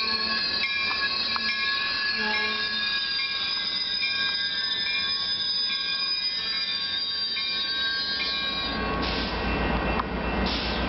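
Commuter train of gallery cars passing, its wheels squealing in several high steady tones that shift up and down. About nine seconds in, a deeper rumble comes in as the locomotive at the rear draws level.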